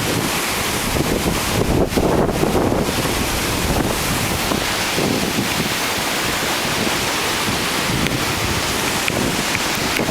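High winds from a hurricane's remnants buffeting the microphone: a loud, steady rush of wind noise.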